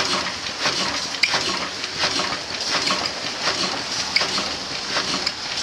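1908 12hp Hornsby-Akroyd single-cylinder hot-bulb oil engine running, with a regular clatter of knocks about twice a second.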